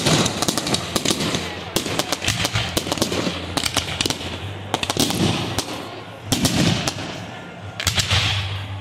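Aerial fireworks going off: a dense run of rapid sharp pops and bangs from bursting shells and crackling stars, with a few louder swells, growing fainter toward the end.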